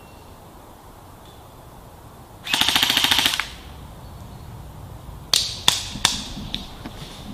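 Airsoft gun firing a rapid full-auto burst lasting about a second, followed a couple of seconds later by three single shots in quick succession.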